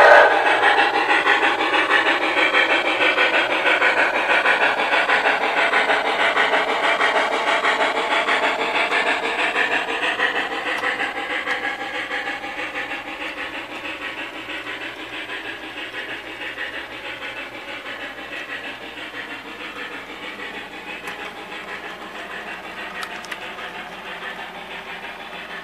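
MTH Pere Marquette 2-8-4 Berkshire model steam locomotive running, its onboard sound system giving a rapid, even steam chuff, along with the rolling of its freight train. The sound fades steadily as the train moves away.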